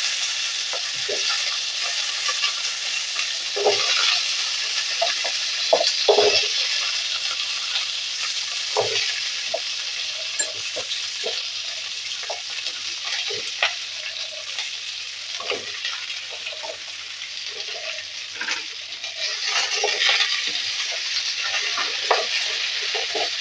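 Cut vegetables (bitter gourd, drumstick pieces, potato, pumpkin, brinjal, carrot) going into hot oil in a wok and sizzling steadily, with scattered knocks and clatters as the pieces land, and a spatula stirring them near the end.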